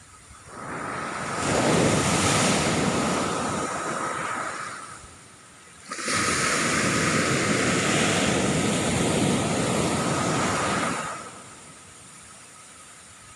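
Large ocean waves breaking on the beach twice, each a loud rush of surf lasting four to five seconds, the second crashing in suddenly about six seconds in.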